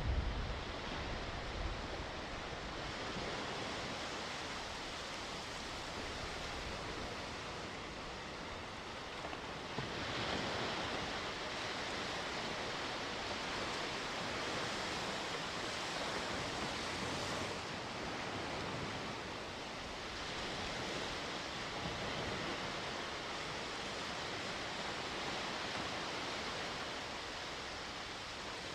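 Sea waves washing onto the shore in a steady hiss of surf, swelling and easing every few seconds, with some wind on the microphone at the start.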